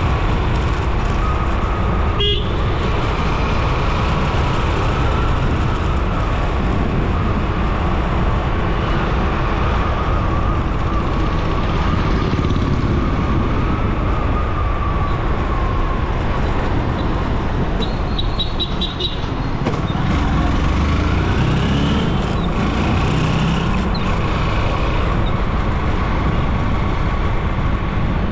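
Steady rush of wind and road noise from a vehicle travelling along a road, with an engine hum whose pitch rises and falls a little with speed. A short horn toot sounds about two-thirds of the way through.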